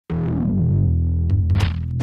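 Soundtrack music built on a low, dense bass drone that starts abruptly, with short noisy swells about a second and a half in.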